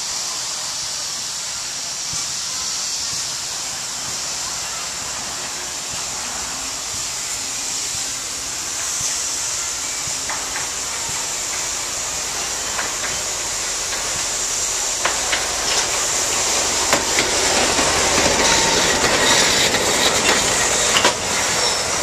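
A steam train on the nearby line: a steady hiss, with rattling and clicking that grow louder over the last third.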